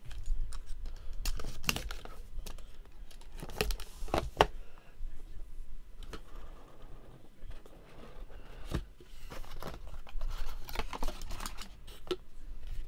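Cellophane shrink-wrap being torn off a trading-card box and crumpled, irregular crackles and crinkles, with the cardboard box handled and its lid lifted off.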